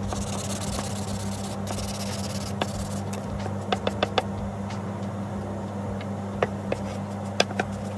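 Sponge rubbing a finish onto a wooden board, with a few light knocks as the board is tipped and set down on the bench. A steady low hum runs underneath.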